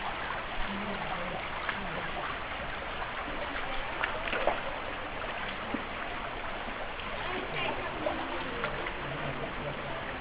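Shallow creek water running steadily over rocks, with scattered small splashes and knocks as someone walks through the creek bed.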